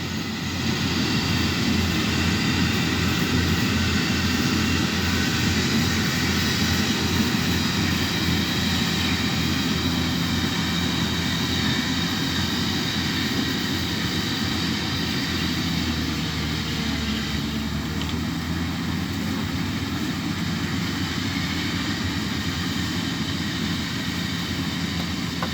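Rice combine harvester running steadily as it harvests paddy: a constant engine drone with the whir of its threshing machinery, growing slightly fainter over the second half.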